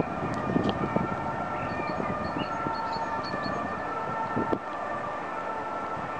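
Outdoor city ambience heard from a height: a distant, steady high whine made of several held tones hangs over the town, with small bird chirps now and then. Wind buffets the microphone, gustier in the first half, and there is a single sharp click about four and a half seconds in.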